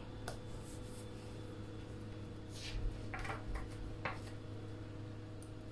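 A few faint taps and paper rustles from placing a planner sticker with tweezers and pressing it onto the page, over a low steady hum.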